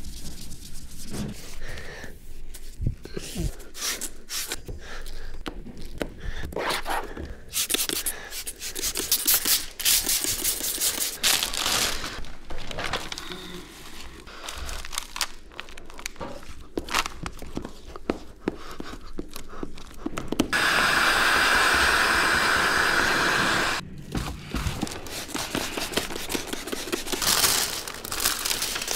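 Squeegee and gloved hands scraping and rubbing over wet window tint film on car door glass, with plastic sheeting crinkling and many scattered clicks and taps. About two-thirds of the way through, a steady hiss lasts a little over three seconds.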